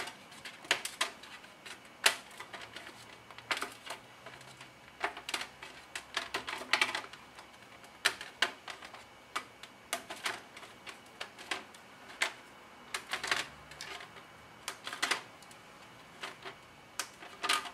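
Chocolate bark being snapped into pieces by hand on a metal baking tray: irregular sharp snaps of the set chocolate breaking and clicks of the pieces knocking on the tray, some in quick clusters.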